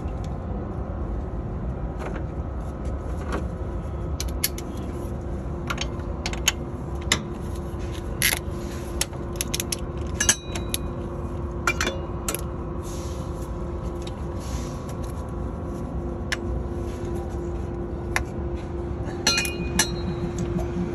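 Scattered metallic clicks and clinks from hand tools and the belt tensioner as a serpentine belt is worked onto a diesel truck engine's pulleys, over a steady low drone with a faint steady tone.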